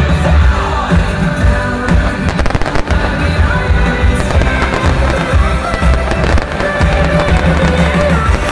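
Fireworks bursting with low booms and clusters of crackling, about two and six seconds in, over loud music.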